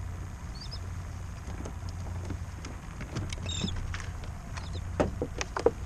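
Scattered clicks and knocks of fishing tackle being handled on a kayak while a clip is put on the line, the loudest few near the end, over a steady low rumble.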